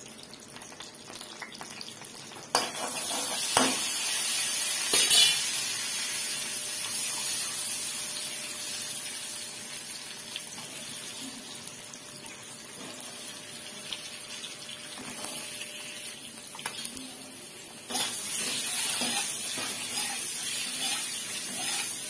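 Peeled boiled eggs frying in hot oil with turmeric in a wok-style pan: a steady sizzle that starts suddenly a couple of seconds in as the eggs go into the oil, with a few knocks of eggs and spatula against the pan. The sizzle jumps up again near the end as more eggs go in and are turned.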